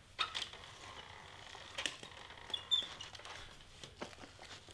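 Xyron Creative Station sticker maker being worked by hand as a cardstock piece is fed through its rollers: soft rustling of paper and adhesive film with a few sharp clicks, and a short high squeak about two and a half seconds in.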